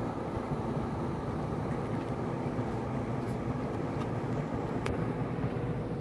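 Wall-mounted refrigeration condensing units running: a steady hum and fan whir with faint even tones, and a faint tick about five seconds in.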